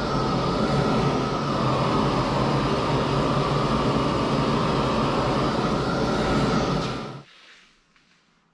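Hose-fed gas torch burning with a steady rush and a faint whistling tone as it heats the cast iron centre section of a Sterling 10.5 axle, preheating it hot before it is wrapped to cool slowly so the nickel welds don't crack. The flame cuts off abruptly about seven seconds in.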